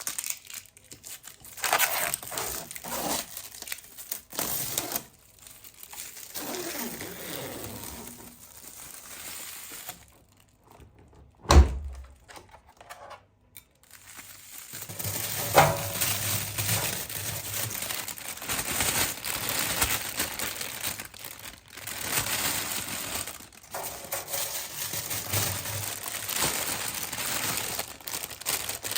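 Irregular rustling and crinkling handling noise, with one sharp thump about eleven and a half seconds in.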